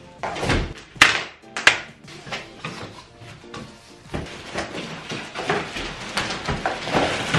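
Cardboard boxes being handled and opened: two knocks about a second in as a box is set down, then cardboard flaps and packing pieces rustling and scraping. Background music plays underneath.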